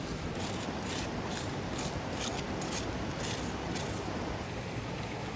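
A run of about eight light, crisp strokes, roughly two a second, over a steady background hiss.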